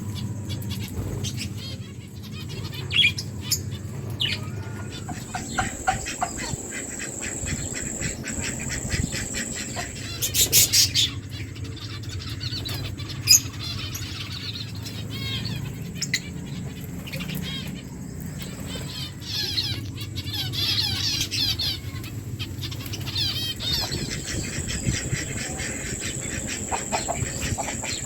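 Pet lovebirds chattering in fast, warbling chirps, loudest about ten seconds in and again from about twenty seconds, over many small clicks and taps as they peck at their food. A low steady hum runs underneath.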